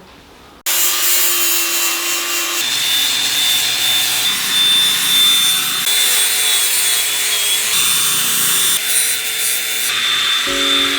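Power tool abrading the metal keel to clean off corrosion: a harsh scraping noise with a steady high whine that starts abruptly just under a second in.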